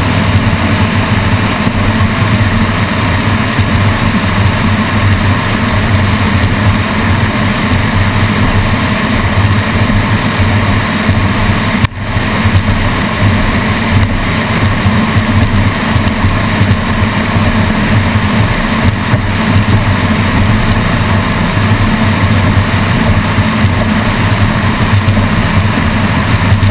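Twin 565-horsepower engines of a Sunsation powerboat running steadily at speed, mixed with wind and water rush over the deck. The sound cuts out for an instant near the middle.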